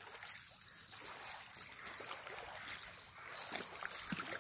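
Small waves lapping and splashing at the water's edge, with a steady high-pitched buzz over it that drops out briefly about halfway through.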